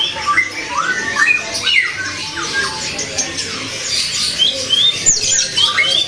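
Many caged songbirds chirping and whistling at once, a dense chorus of short overlapping notes that slide up and down in pitch.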